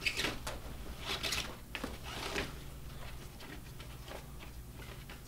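Nylon lashing straps being pulled through a sled's rings and across a tarp-wrapped load, with about four quick rustling pulls in the first two and a half seconds, then quieter handling.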